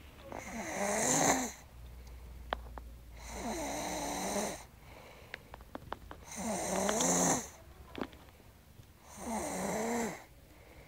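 A woman snoring in her sleep: four long snores about three seconds apart, each a pitched, wavering drone, with quieter breathing between them.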